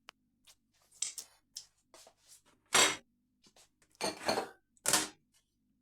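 Kitchen handling noises: a scattered run of short clinks, scrapes and rustles as cutlery and a bowl are handled by hands in handcuffs, with the loudest three about halfway through and near the end.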